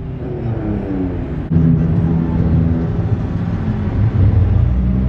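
Car engines running as cars drive slowly past at low speed. The engine note steps up suddenly and gets louder and deeper about a second and a half in, then holds steady.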